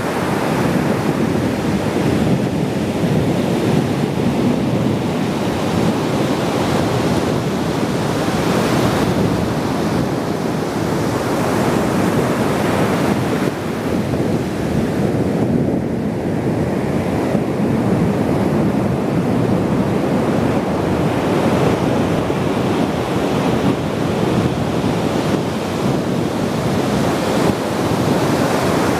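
Ocean surf: a continuous rush of waves breaking and washing ashore, swelling brighter every several seconds as a wave breaks.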